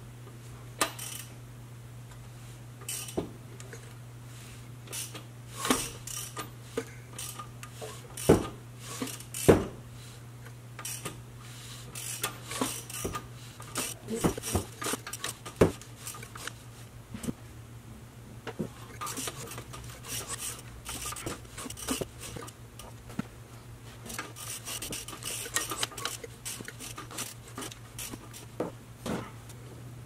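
Irregular metal clicks and clinks of a hand wrench turning the 2.4 L Ecotec's crankshaft by its bolt, with the new timing chain running over the sprockets. A few louder knocks come around eight and nine and a half seconds in, and a steady low hum runs underneath. The engine turns over with no interference, a sign that the cam and crank timing is set correctly.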